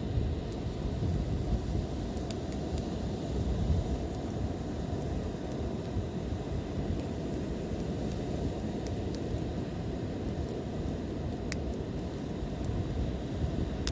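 Wood fire burning: a steady low rumble of flames with sparse, sharp crackles and pops scattered through it.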